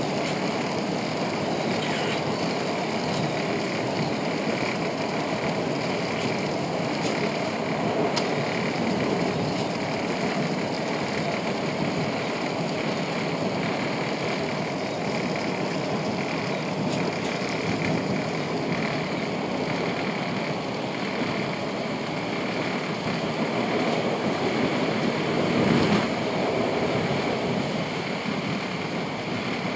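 PATCO Speedline electric rapid-transit train running at speed, heard from inside the front car: a steady rumble of wheels on the rails with a few faint clicks, swelling a little about 26 seconds in.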